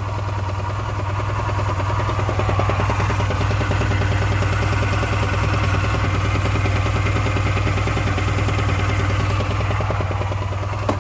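Honda Silver Wing 600 scooter's parallel-twin engine idling, warmed up a little, with an abnormal knock running through it. The variator has been ruled out, and the crankshaft has radial play, so the mechanics suspect worn connecting-rod or main bearings.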